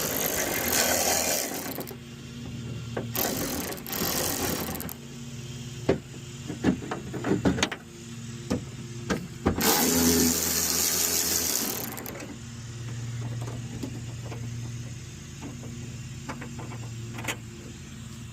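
A socket ratchet clicking in three bursts of a couple of seconds each as the 10 mm bolts holding the door-handle mechanism are turned out, with scattered knocks and clicks of metal parts inside the door between them. A steady low hum runs underneath.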